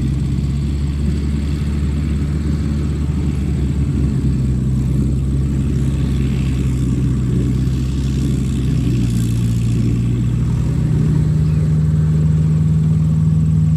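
Diesel engines of a JCB backhoe loader and a tractor running close by with a steady drone; about ten seconds in the engine note steps up and holds higher.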